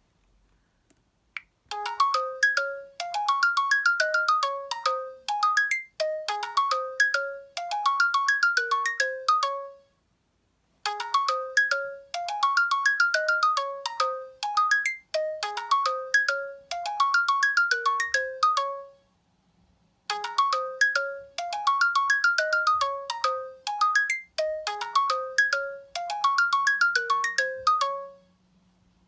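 An LG Spirit phone ringtone playing: a quick, repeating melody of short, decaying chiming notes. The tune plays through three times, with a brief pause after the first and second times.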